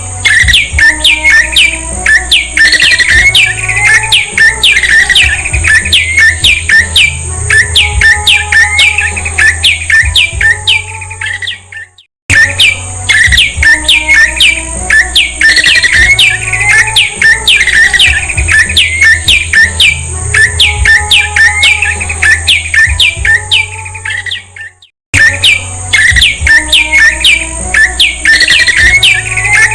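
Prenjak (prinia or tailorbird) calls from a looped recording: a fast run of sharp, downward-sweeping chirps, about two to three a second. The recording cuts out briefly and starts over twice, over a low hum and a steady thin high tone.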